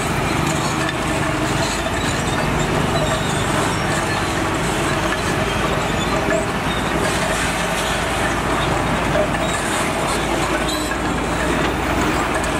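Heavy diesel construction machinery running steadily at work.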